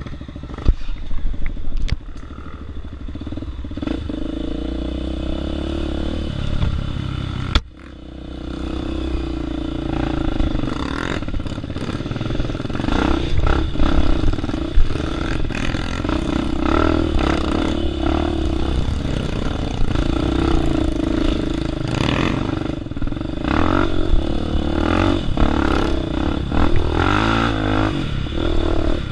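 Dirt bike's single-cylinder four-stroke engine running under throttle on a rough trail, the revs rising and falling, with clattering and knocks from the bike over the rocky ground. The engine sound drops away sharply for a moment about eight seconds in, then picks back up.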